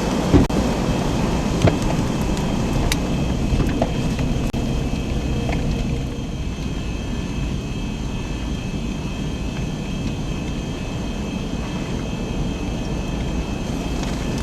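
Strong wind roaring through the forest trees, a steady rush that sounds like a jet coming in, with a few sharp clicks or knocks in the first four seconds.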